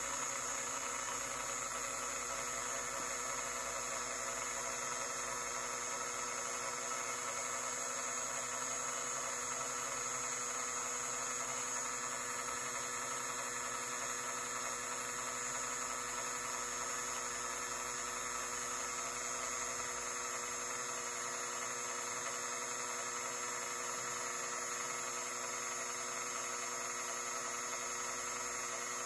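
A steady machine hum made up of several steady tones over a faint hiss.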